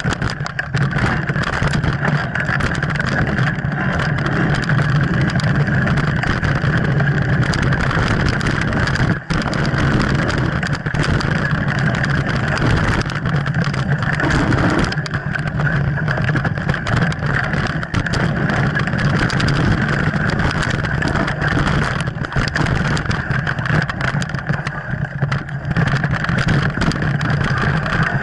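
Mountain bike riding fast down a rough dirt trail, heard from a camera mounted on the bike: a steady rumble of wind and tyre noise with constant rattling clicks as the bike jolts over roots and rocks.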